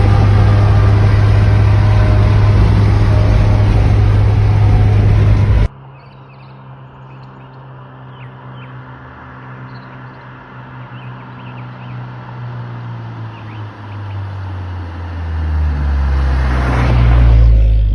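Steady loud drone of a car driving, which cuts off suddenly about six seconds in. After it, birds chirp over a low vehicle hum that builds up near the end as a vehicle comes closer.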